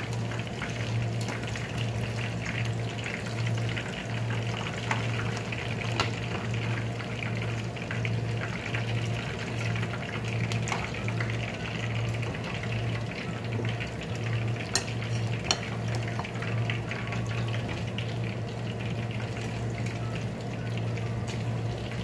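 Chicken leg pieces deep-frying in hot oil: a steady crackling sizzle, with a constant low hum underneath and a few sharp clicks.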